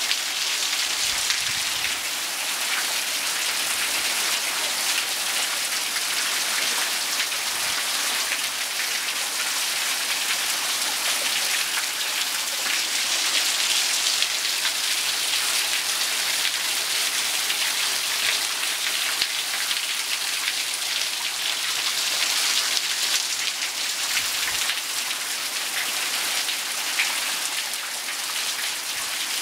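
Heavy downpour: dense rain hissing steadily as it pelts a paved terrace, its furniture and the garden beyond.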